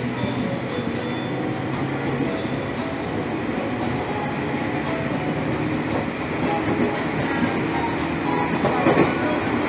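Running noise inside a JR 205 series motor car at speed: a steady rumble of wheels on rail with a faint whine from the traction motors and gearing. Briefly louder near the end.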